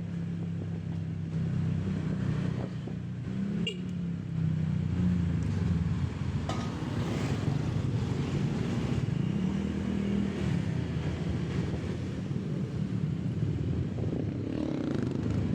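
Vehicle engine running while under way, its pitch rising and falling gently with speed over a steady rush of road and wind noise.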